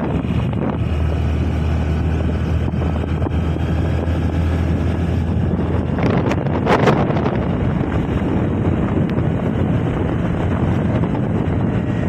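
A motor vehicle's engine running steadily while on the move, heavily mixed with wind buffeting the microphone. The wind rush swells briefly about six to seven seconds in.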